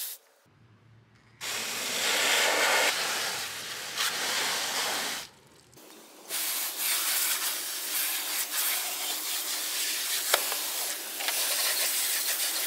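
Garden hose spray nozzle hissing as it blasts water through a pool robot's filter basket and over the robot's plastic body, rinsing out sand. The spray stops for about a second just after the start and again about halfway through, then runs on.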